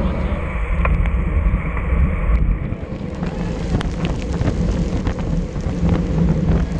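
Wind rumbling over the microphone of a camera mounted on a racing bicycle at speed, with tyres hissing on a wet road. Scattered sharp clicks from about three seconds in.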